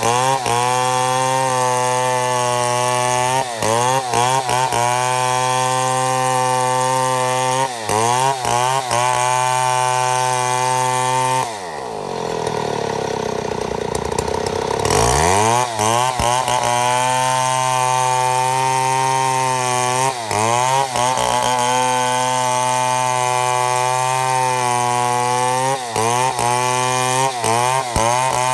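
Chainsaw running at high revs while milling a mahogany log, its note dipping briefly now and then under load. About twelve seconds in, the revs fall away for a few seconds, then climb back to full speed.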